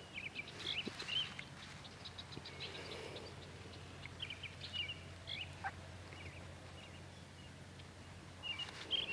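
Birds chirping on and off in short, scattered calls, with one falling whistle a little past halfway, over a faint steady low hum.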